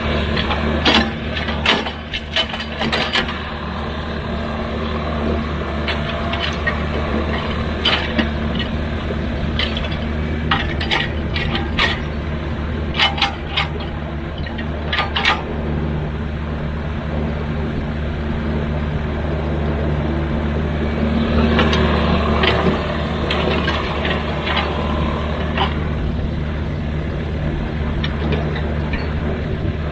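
Hydraulic excavator's diesel engine running steadily, with many sharp metallic knocks and clanks through the first half. The engine grows louder for a few seconds about two-thirds of the way through, as if working under load.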